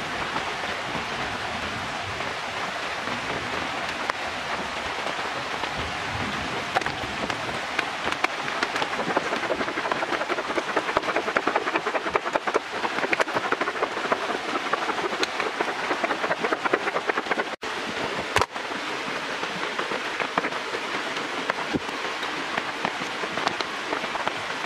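Jambolan plums rattling in a clear plastic container as it is shaken: a dense run of small clicks over a steady rain-like hiss. The sound cuts out briefly twice, a little past the middle.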